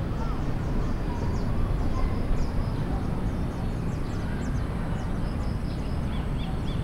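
Outdoor ambience: many small birds chirping in quick high calls, with a run of three chirps near the end, over a steady low rumble of background noise.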